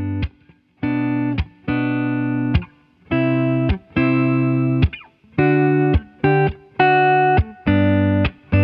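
Background music: distorted electric guitar playing held chords in short stop-start bursts, each cut off sharply.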